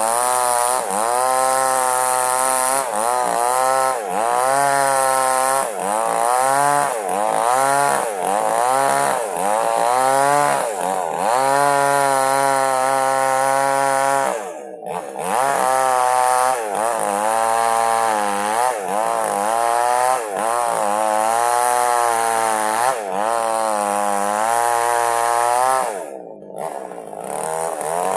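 Small two-stroke chainsaw at high revs cutting lengthwise through a log. Its pitch sags and recovers again and again under the load of the cut. It throttles back briefly twice, about halfway and near the end.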